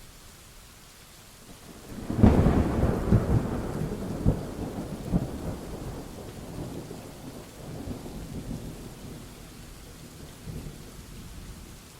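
Thunderstorm: steady rain with a sudden loud thunderclap about two seconds in, rolling into a rumble that slowly dies away, swelling again briefly later.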